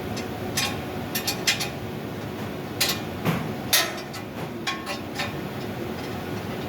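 Irregular sharp metallic clicks and knocks from tools and metal parts during installation of an air handling unit blower, about nine in all, over a steady mechanical hum.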